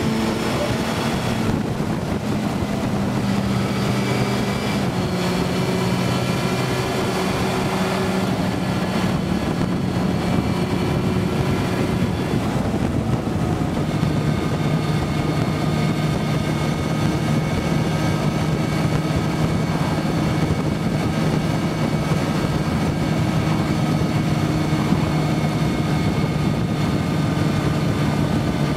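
Motorcycle engine running on the move, heard from the rider's seat with wind rushing over the fairing. The engine note shifts several times in the first half, then holds steady.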